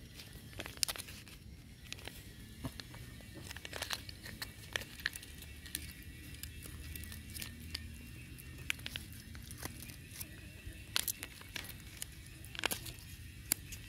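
A kitten and its mother cat eating wet cat food off a dry banana leaf: irregular sharp smacking and chewing clicks with light crackles.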